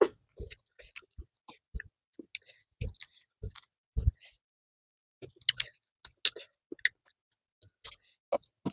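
Close-miked eating sounds: chewing and scattered short clicks and crackles as a fried shrimp's shell is peeled off by hand.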